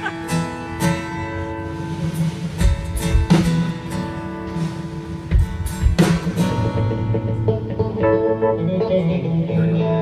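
A live band playing through a stage PA: guitars holding sustained, strummed chords, with a few drum hits.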